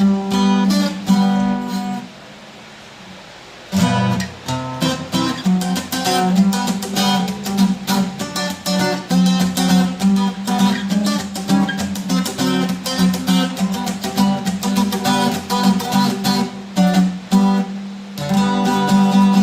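A bajo sexto, the Mexican twelve-string bass guitar, strung with new Eclipse strings, being played: a run of picked and strummed notes, a pause of about two seconds near the start, then the playing resumes.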